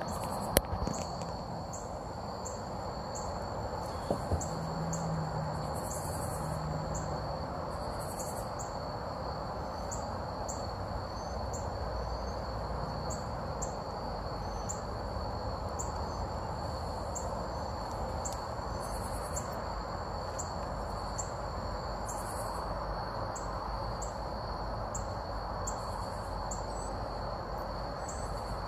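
Crickets singing: a steady high trill with a pulsed chirp repeating about one and a half times a second, over a steady background hum. A sharp click about half a second in and two small clicks around four seconds in.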